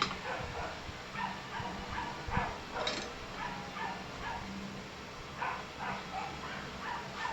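A dog yipping and whimpering in short, repeated high calls, a few each second, with a sharp knock at the very start.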